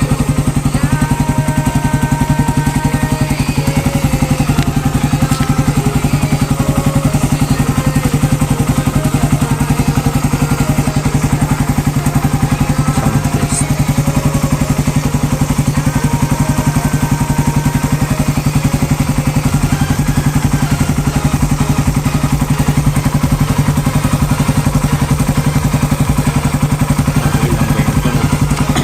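Suzuki Raider 150 single-cylinder engine idling steadily through a big exhaust elbow without the catalytic canister, being warmed up, with a fast, even low putter.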